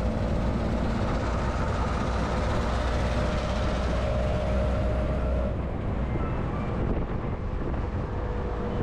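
Steady road noise of a car being driven: a low rumble with a faint, even hum over it.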